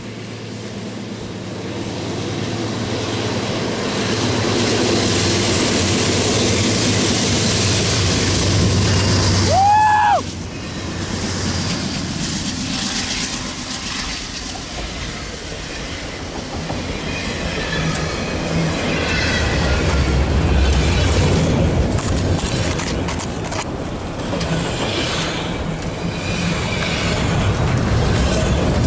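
Train running past on the nearest track in a snowstorm, a steady rumble of wheels on rail mixed with wind and blowing snow. The noise builds over the first few seconds. About ten seconds in there is a brief rising-and-falling whoop, and the level drops suddenly right after it. The rumble swells again toward the end.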